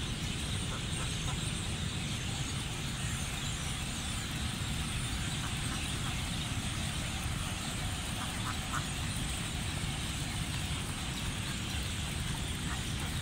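Mallard ducks quacking now and then, a few short, faint calls with a close pair about eight and a half seconds in, over a steady low rumble and hiss.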